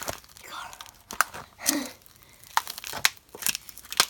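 Irregular sharp crackles and crinkling from a tablet being strained and bent, its casing and glass creaking under the pressure without folding.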